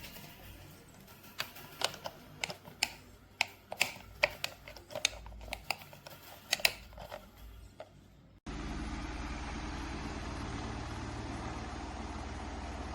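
Scattered sharp clicks and knocks, like parts being handled. After an abrupt cut about eight seconds in, a Max Star 18-inch standing fan runs with a steady rushing air noise and a low motor hum.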